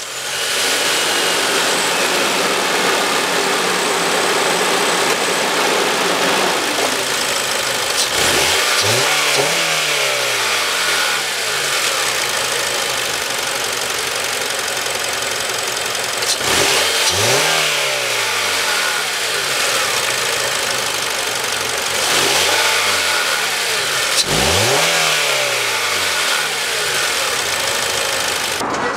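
2007 Honda Accord Type S i-VTEC four-cylinder engine being revved, free-revving. It is held high for the first several seconds and then drops back. Four quick throttle blips follow, each climbing and falling straight back to idle, the last two close together.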